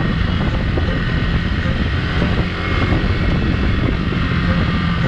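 Yamaha R15 motorcycle riding along, its engine running steadily under a loud, even rush of wind over the microphone.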